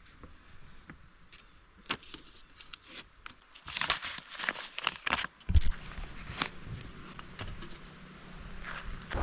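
Paper crinkling and rustling with scattered clicks and knocks, as of a campsite fee envelope being handled. About five and a half seconds in comes a single loud thump, followed by a low steady hum.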